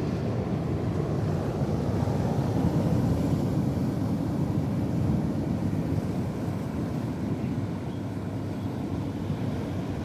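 Steady low rumble of wind buffeting the microphone, with waves and surf washing in the background.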